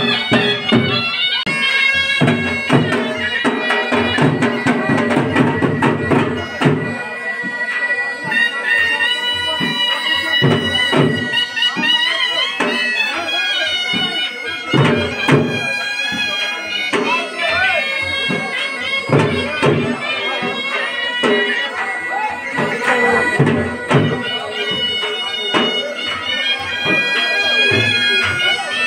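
Wedding band music: a loud, piercing reed or pipe melody over a steady drone, with drum beats all through.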